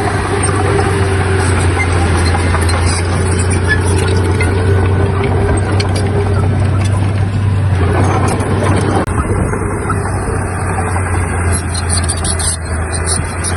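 Heavy diesel engine of earthmoving machinery running steadily under load, with a constant low drone.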